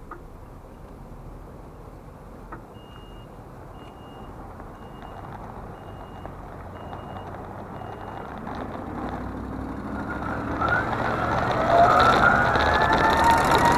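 Electric mobility scooter backing up, its reverse warning beeper giving short high beeps about twice a second, then its drive motor whining upward in pitch and growing louder as the scooter pulls away and speeds up.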